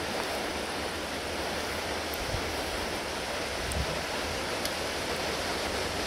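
Steady rushing wind through trees and over the microphone as a storm gathers, with uneven rumbling buffets low down.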